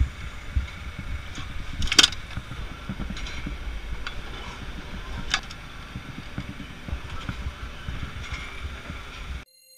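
Clicks and knocks of a hard plastic equipment case and an orientation unit being handled and fitted onto a drill rig, over a low steady rumble. The sharpest click comes about two seconds in, and another comes past the middle. The sound cuts off abruptly near the end.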